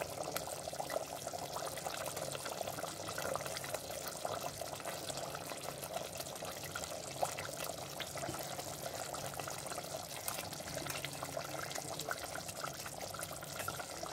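Thick tamarind fish curry boiling hard in a clay pot on high flame: a steady bubbling with many small pops, while pieces of fish are slipped into it.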